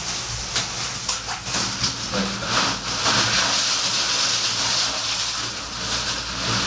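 Bag of ice cubes emptied into a bathtub of water: a steady rushing clatter and splash of ice, with a few sharp clicks in the first second and a half.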